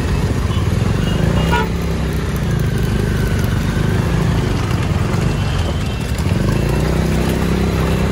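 Motorcycle engine running steadily while riding through town traffic, with road and wind noise and other motorbikes and cars around.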